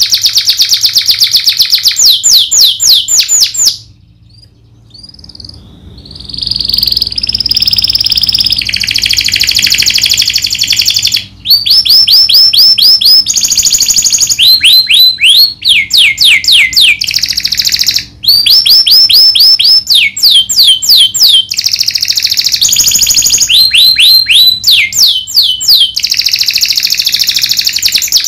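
Domestic canary singing loudly in fast rolls of rapid, repeated downward-sweeping notes, alternating with buzzier held phrases. The song stops for about two seconds about four seconds in, then starts again.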